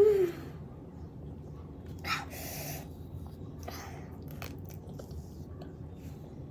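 A short pained vocal groan that falls in pitch, then a sharp noisy sniff or breath about two seconds in and a fainter one soon after. These are the sounds of someone suffering the burn of an extremely hot chip.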